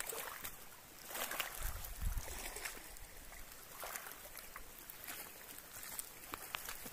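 Shallow water sloshing and splashing in uneven surges, with scattered sharp clicks and a couple of low bumps from wind or handling on the microphone.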